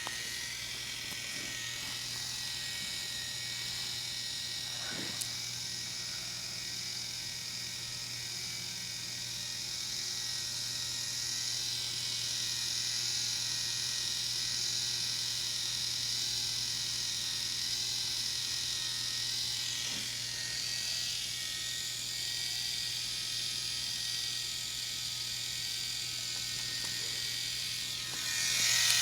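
Small K'nex electric motor running steadily as it drives a model's slow chain lift, a steady whine that grows louder near the end.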